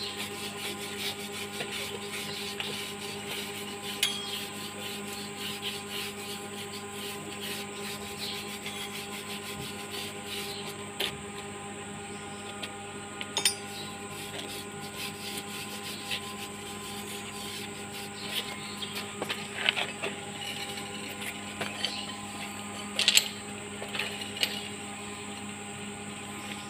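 Hand-held wire brush scrubbing a fresh stick weld on a cast-iron tractor rear axle housing: rapid, continuous scratching strokes of steel bristles on metal, cleaning slag off the bead. A few sharper knocks break in, and a steady hum runs underneath.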